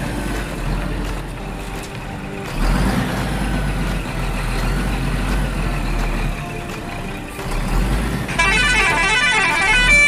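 Sound effect of a heavy truck engine running, a low rumble with brief breaks. A tune of quick, bright notes starts about eight seconds in.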